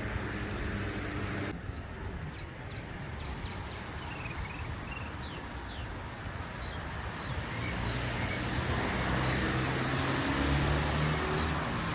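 Street traffic: a car's engine running nearby, growing louder about three-quarters of the way through as it passes with a hiss of tyres.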